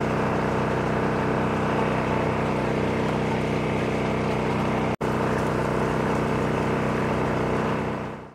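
A steady motor hum made of many even, unchanging tones, broken by two brief dropouts and fading out near the end.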